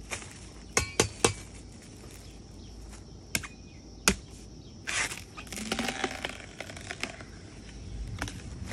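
Five sharp knocks or snaps in the first few seconds, then a couple of seconds of rustling and crackling, as a bamboo shoot is cut and its dry sheaths and the leaf litter are handled.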